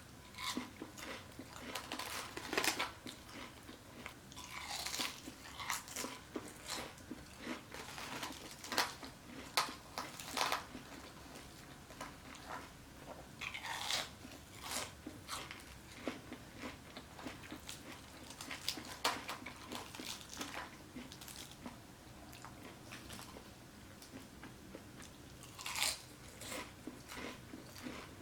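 Close-miked chewing and biting of crunchy fried fast food, with irregular crisp crunches scattered throughout.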